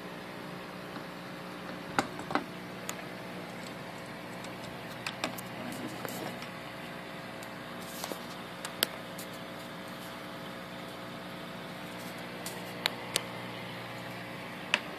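Steady electric hum of an aquarium pump, with short sharp clicks scattered through it, a pair about two seconds in and a few more near the end.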